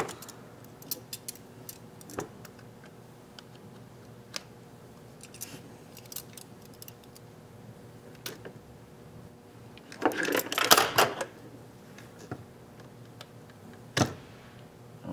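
Scattered small clicks and taps of a metal carpet staple being worked into a camcorder's plastic power connector, with a louder burst of clicking and scraping about ten seconds in and one sharp click near the end.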